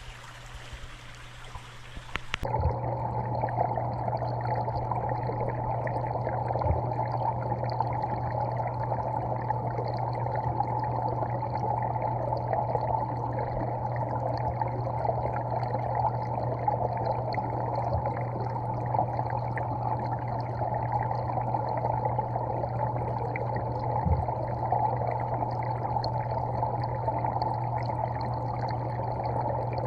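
Small creek's water running steadily into a pool, heard muffled from underwater. From about two and a half seconds in, the sound switches abruptly to the dull, steady rush picked up by a submerged camera.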